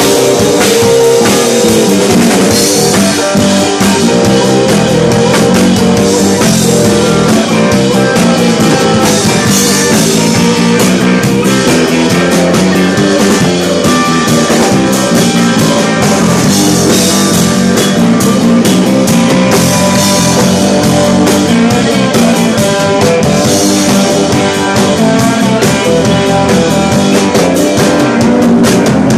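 Live rock band playing loudly: electric guitars over a full drum kit with cymbals.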